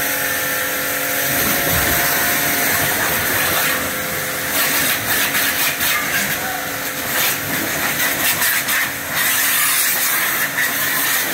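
APR electric pressure washer running, its motor humming under the hiss of the high-pressure water jet rinsing a scooter. The hiss rises and falls as the spray moves over the surfaces.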